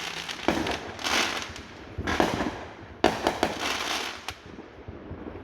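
Fireworks going off: three sharp bangs a second or so apart, each followed by a spray of crackling that dies away near the end.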